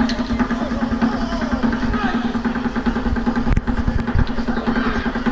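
Indistinct voices of people talking, over a steady low hum.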